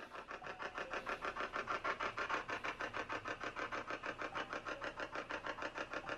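Spirit box (ghost box) sweeping through radio stations, giving a fast, even chop of static at about eight pulses a second.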